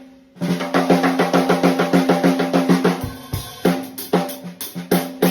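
Old Keplinger snare drum slackened to a low tuning, played with a quick run of even stick strokes for about three seconds, then, after a brief pause, a few harder single hits. Each stroke rings on at a steady low pitch; at this tuning the drum is barely playable.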